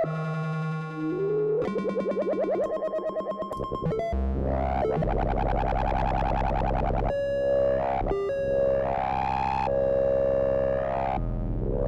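Buchla Music Easel synthesizer: its complex and modulation oscillators play a shifting patch of electronic tones that change pitch and timbre every second or two. Several tones start with an upward pitch swoop, one stretch has a fast buzzy wobble, and a low bass tone sounds underneath from about four seconds in.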